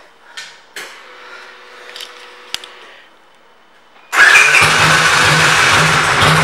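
2005 Victory Vegas V-twin with aftermarket exhaust pipes firing up about four seconds in, then running at a loud, steady, pulsing idle. Before that there are only faint clicks and a short steady hum.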